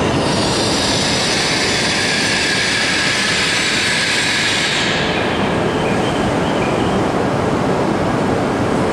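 E5 series Shinkansen coupled to an E6 series set, running slowly past the platform: a steady, loud rumble of wheels and running gear with a high-pitched hissing squeal over it that fades out about five seconds in.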